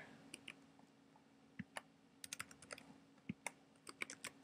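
Faint computer keyboard keystrokes as digits of a phone number are typed, a few scattered taps and then quick irregular runs of key clicks in the second half, over a faint steady hum.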